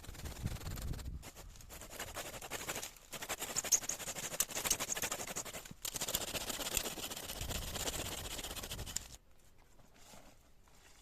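A dense rasping scrape, broken by short pauses, that stops about nine seconds in.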